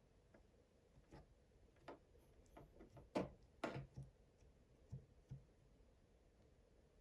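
Faint scattered clicks and light knocks, with two louder knocks a little past the middle.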